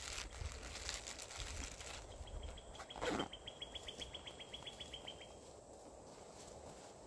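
Backpack and clothing rustling as a hiker adjusts the pack's hip belt, with a dull thump about three seconds in. Over it, a bird gives a trill of evenly spaced high notes at one steady pitch, about seven a second, lasting about three seconds.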